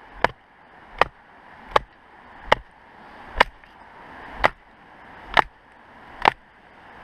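Large survival knife chopping into firewood: eight sharp, evenly paced chops, about one a second.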